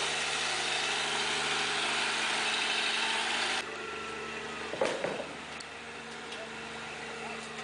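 Loaded logging truck's engine running steadily as it drives past on a dirt road, with a rushing noise over it that drops away suddenly about three and a half seconds in. A brief knock follows about five seconds in.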